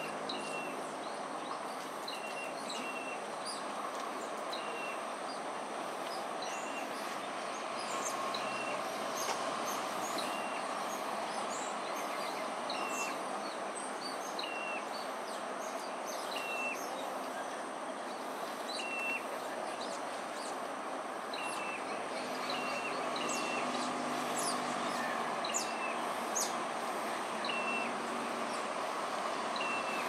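Steady rushing background noise of the city riverside, with short high chirps recurring every second or two and fainter brief squeaks over it.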